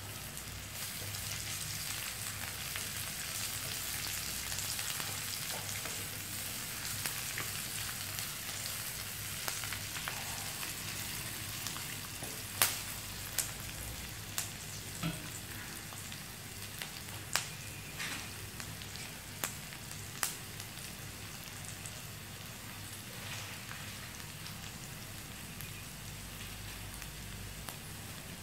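Sliced onion, curry leaves and dry and green chilies sizzling in hot oil in a wok, a steady hiss. Through the middle comes a scattering of sharp single clicks.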